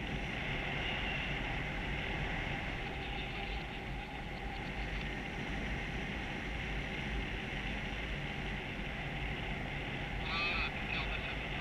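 Steady rushing wind on the camera's microphone during a paraglider flight, with a brief patch of higher chirping sounds about ten seconds in.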